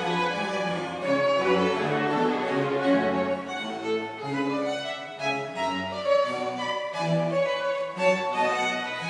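A string chamber orchestra of violins and cellos playing classical music, moving from note to note over a bass line from the cellos.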